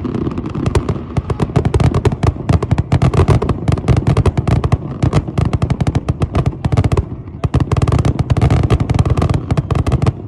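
Fireworks display: a dense barrage of rapid crackling reports over a continuous low rumble, thinning briefly about seven seconds in and cutting off suddenly near the end.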